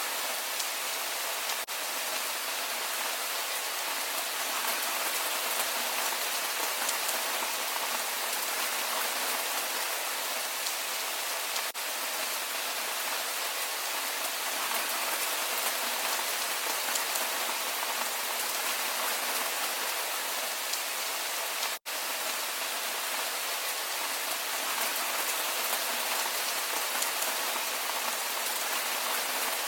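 Steady rain falling, an even hiss that cuts out for an instant about two-thirds of the way through.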